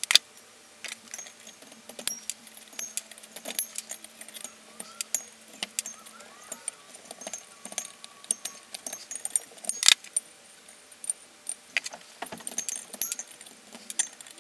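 Hose pliers and other steel tools clinking against a BMW M54B30 cylinder head as the old valve stem seals are pulled off the valve guides. Irregular sharp metallic clicks throughout, with a louder clank at the start and another about ten seconds in.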